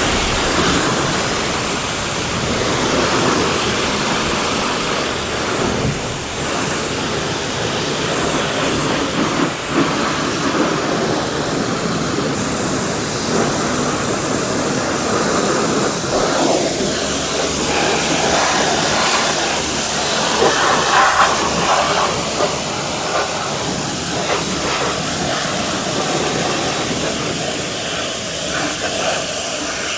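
High-pressure car washer jet spraying water onto a car's body: a loud, steady hiss of spray that swells and dips a little as the jet moves.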